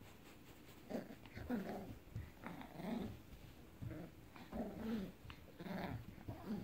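Eight-week-old puppy growling in playful tug-of-war over a plush toy: a string of short growls starting about a second in.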